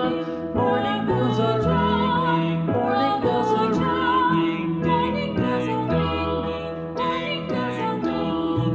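Background music: a melody over sustained chords, with notes changing about every half second to a second.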